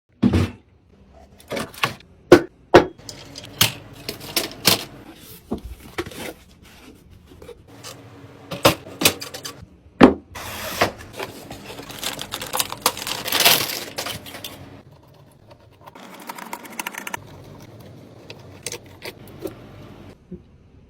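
Clicks, knocks and small rattles of PC hardware being handled and fitted together, with a stretch of rustling about halfway through.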